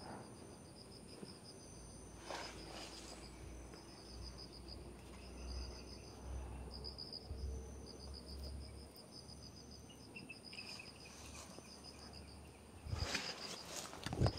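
Insects chirping in a repeating series of short, high trills, each about a second long, over a faint steady high whine. Near the end, leaves rustle close to the microphone.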